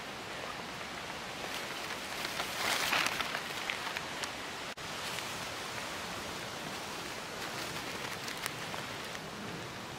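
Steady outdoor hiss with scattered faint ticks, and a short burst of leaf-litter rustling about three seconds in as a hand works among the fallen leaves to pick a mushroom.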